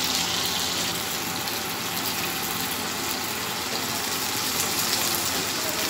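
Snapper shallow-frying in hot oil in a pan: a steady sizzle with fine crackles.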